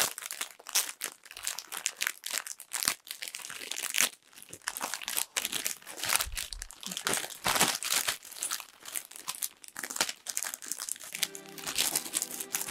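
Plastic packaging of a waterproof bed sheet crinkling and rustling in irregular bursts as it is handled and turned over. Background music with steady held notes comes in near the end.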